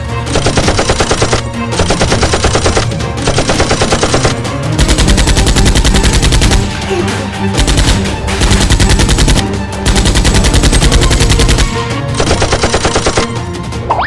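Dubbed-in automatic gunfire sound effects: rapid machine-gun fire in repeated bursts of one to two seconds with short gaps, laid over background music.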